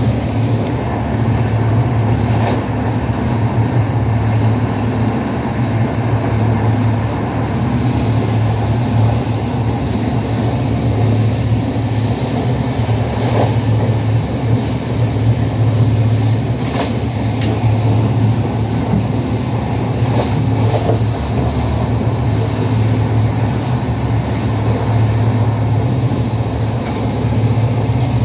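Steady running rumble of a moving intercity passenger train, heard from inside the passenger car, with faint clicks now and then.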